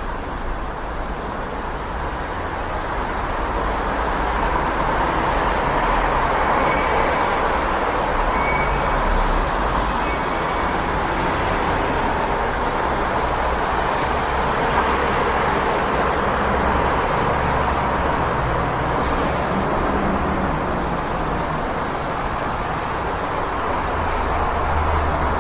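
City street traffic noise: a steady wash of passing vehicles with a low engine rumble, growing a little louder a few seconds in.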